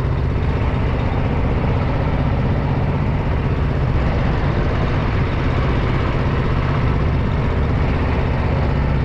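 Motorboat engine running steadily with a constant low hum.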